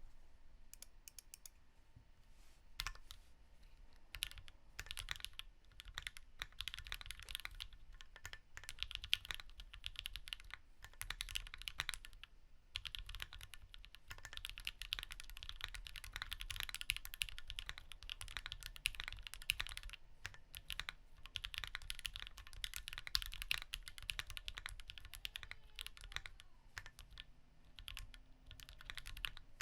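Typing on a custom 60% mechanical keyboard with a PSD60 RE case, brass plate, lubed Gateron Cap V2 switches and DMK keycaps. The key presses come in fast bursts of several seconds, with short pauses between them. The owner hears the board as poppy, with some hollowness.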